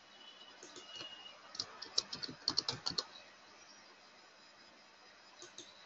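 Typing on a computer keyboard: a quick run of about a dozen keystrokes between one and a half and three seconds in, then two more near the end.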